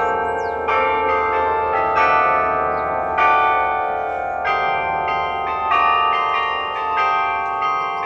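The Delacorte Musical Clock's bells playing a slow tune, a new struck note about every second, each note ringing on under the next.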